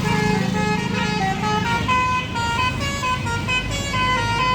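Bus 'basuri' melodic horn playing a tune: a run of held notes stepping up and down in pitch, over the low running of the bus's engine.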